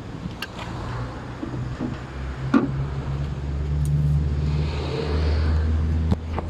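Car engine running at a steady low hum that swells louder over the middle of the clip, with a few sharp clicks.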